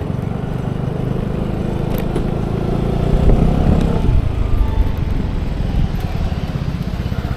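Vespa scooter engine running under way with an even low pulse; it revs up around three seconds in and eases off about a second later.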